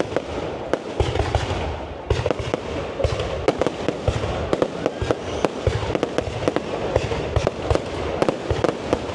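Fireworks display going off in a rapid, continuous barrage of sharp bangs and crackles, with deeper booms about every second.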